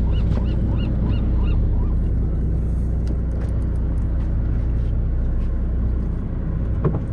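Charter fishing boat's engine running as a steady low rumble. A run of short high chirps, about four a second, fades out in the first second and a half, and a few faint ticks follow.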